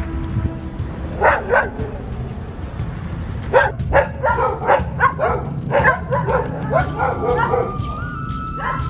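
Dogs barking: two barks about a second in, then a quick run of many barks, over a steady low rumble.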